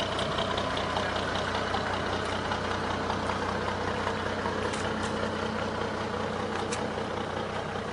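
Pickup truck idling with a steady mechanical hum while the rig on its bed swings a large folded speaker wall upright.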